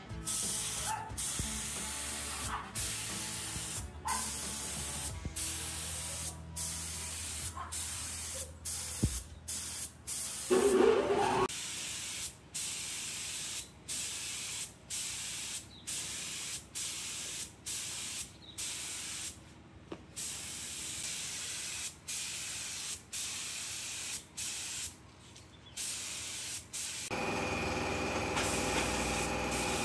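Gravity-feed air spray gun spraying paint, a high hiss in repeated passes broken by short gaps as the trigger is let go. There is one brief louder noise about eleven seconds in, and a steady machine hum starts near the end.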